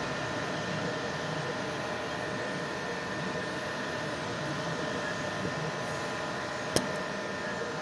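Cubicon Single Plus 3D printer running while it prints: a steady hum of fans and motors with several steady whining tones, and one sharp click about seven seconds in.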